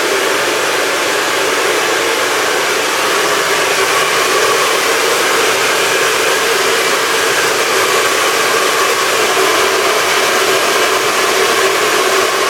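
Hand-held hair dryer fitted with a nozzle, running steadily: a constant rush of blown air with a hum in it, a little louder from about three seconds in.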